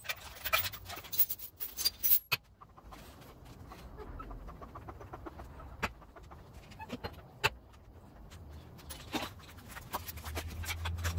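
Handling noises: irregular sharp clicks and taps with rustling as hands move the orange high-voltage cables on the transaxle and sleeves brush against the parts.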